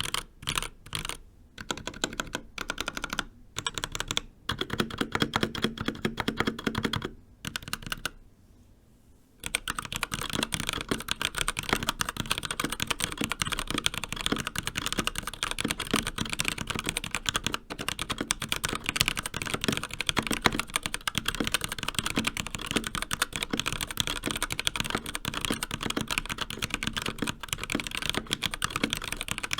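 Typing on an Endorfy Thock Compact Wireless mechanical keyboard with Kailh Box Black linear switches. At first there are separate keystrokes and short runs with pauses between them. After a brief quiet spell about nine seconds in, steady fast typing follows.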